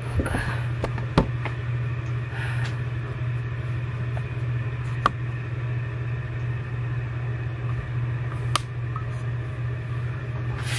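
Steady low hum with a few sharp clicks scattered through it.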